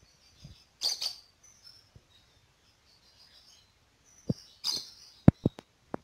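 Caged lovebirds giving short, high chirps in two brief bouts, with a few sharp clicks and knocks from the cage in between, the loudest a little after five seconds in.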